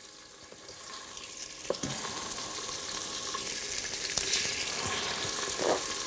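Beef cubes sizzling in hot olive oil in the stainless inner pot of an electric multicooker on its sauté setting, a crackling hiss that grows louder as more pieces go in to brown.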